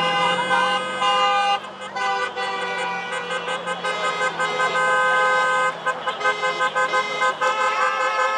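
Several car horns honking at once, long held blasts overlapping at different pitches, breaking into quick repeated short toots near the end.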